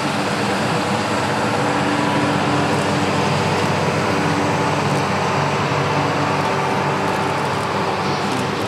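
Steady jet noise from a formation of six Kawasaki T-4 twin-turbofan jets flying past overhead: a continuous rushing drone with a few faint held tones in it.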